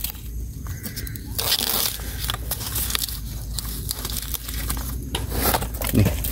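Knife cutting bamboo shoots at the base of a bamboo clump: irregular crunching cuts and scrapes through the fibrous shoots, with dry bamboo sheaths and leaves crackling.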